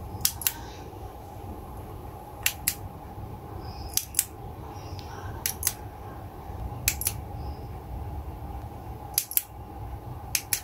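Small push-button switch on an LED name lamp pressed again and again, each press a quick double click, about seven presses spaced a second or so apart, switching the lamp's light.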